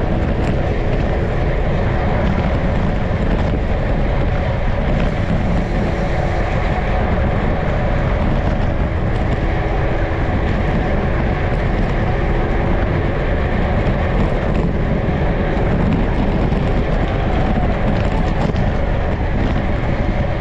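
Steady rush of wind and road noise picked up by a camera riding on a racing road bicycle at speed, heaviest in the low rumble.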